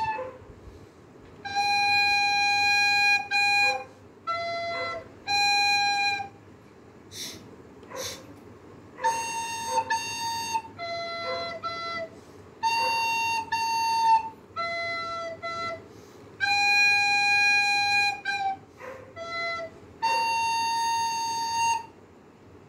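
Soprano recorder playing a simple beginner tune: short phrases of held single notes with pauses between them. The last note stops near the end.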